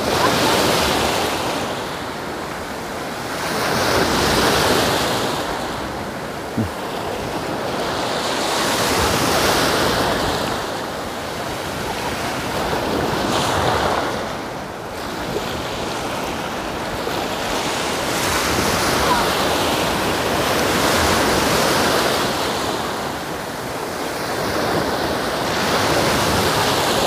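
Surf breaking on a shallow sandy beach, the roar of each wave swelling and ebbing in slow surges every four to five seconds.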